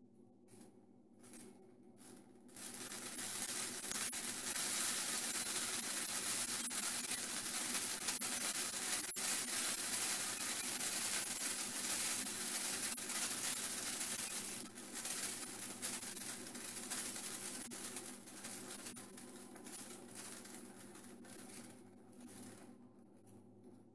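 Water from a melting ice cube sizzling on a red-hot electric hotplate, with scattered crackles as it boils off. It starts about two and a half seconds in, is loudest through the middle, and fades away near the end as the water is gone.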